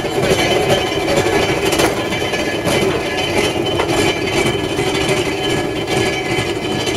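A 1930-built locomotive turntable rotating: a steady mechanical rumble and hum with a few light clanks.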